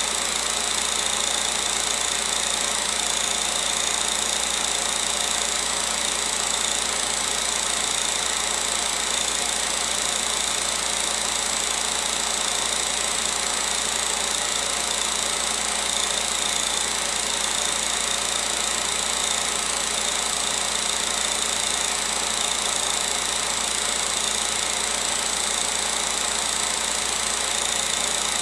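16mm film projector running: an unchanging mechanical whir and clatter from its motor and film transport, with a steady high whine.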